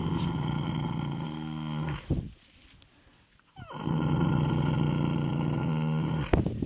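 Horse snoring in its sleep: two long snores, each a steady droning tone, the first ending about two seconds in and the second following after a pause of about a second and a half. A few short, sharp breath sounds come near the end.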